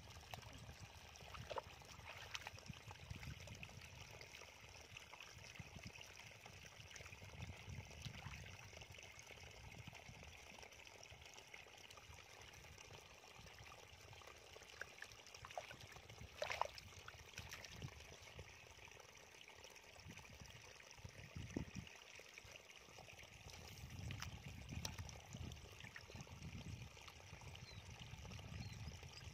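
Faint sloshing and splashing of shallow muddy water as hands grope through mud for fish, with a few brief sharper splashes, the clearest about halfway through.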